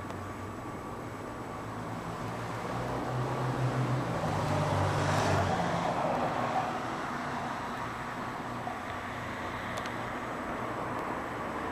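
A motor vehicle passing: a low engine hum and road noise swell about four seconds in and fade again, over steady background traffic noise.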